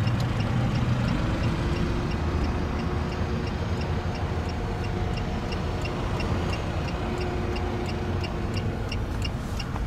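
Datsun on-Do's four-cylinder engine idling steadily, heard with the driver's door open. A light, regular ticking runs over it at about two ticks a second.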